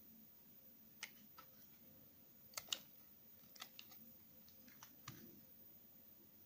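Small knife cutting slices from a bar of soap scraps pressed together: a run of faint, short, sharp clicks as the blade cuts through, the two loudest close together about two and a half seconds in.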